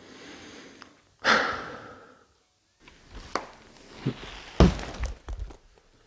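Scattered knocks and thuds of footsteps and objects bumped among floor debris, with a sharp rushing noise about a second in that fades over about a second.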